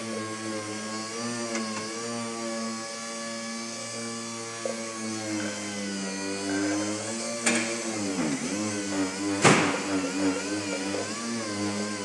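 Electric polishing tool with a buffing pad running against a plastic headlight lens, its motor note wavering and dipping in pitch as the pad is pressed and worked across the lens. Two sharp knocks come partway through, the second the louder.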